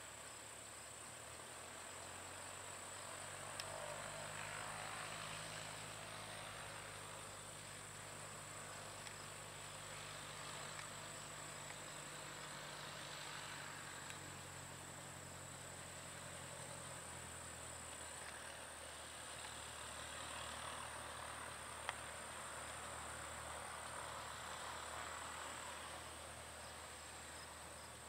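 Steady high-pitched trill of insects in the grass, with a faint low hum underneath that shifts in pitch a couple of times, and one sharp tick about three quarters of the way through.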